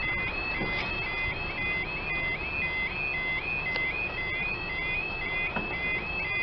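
UK level crossing yodel alarm sounding: a rapid, repeating two-tone warble of about three rising cycles a second, which stops near the end.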